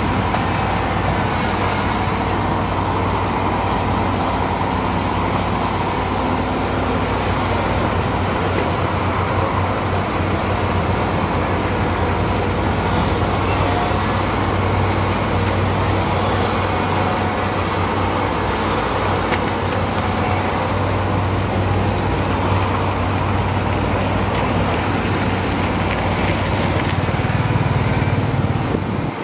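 Heavy diesel construction machinery running steadily, with a constant low engine drone.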